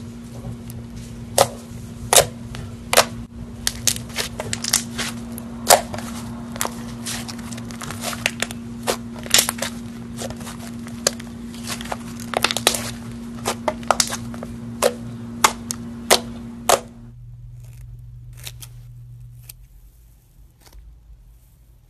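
Thick slime pressed and folded by hand, giving off irregular sharp pops and clicks, several a second, as trapped air bursts, over a steady low hum. The pops stop about three-quarters of the way in, leaving only faint soft squishing of a foam-filled stress ball being squeezed.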